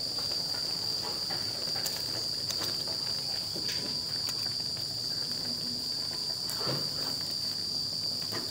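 Crickets trilling in one steady high-pitched tone, with a few soft scrapes of a plastic spatula stirring noodles in a wok.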